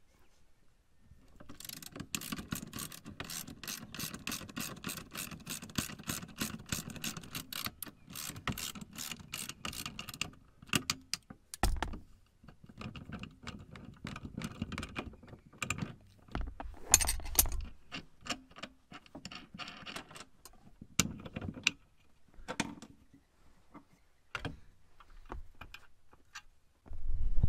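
Hand ratchet clicking as bolts on the rear seat mounting are turned: a fast, steady run of clicks for about nine seconds, then shorter runs and scattered clicks and clinks of tools.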